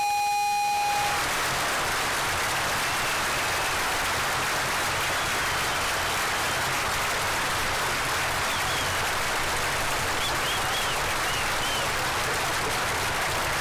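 A large crowd applauding in a dense, steady wash of clapping, with a few short whistles over it. Under the first second a steady high electronic tone sounds and then cuts off suddenly.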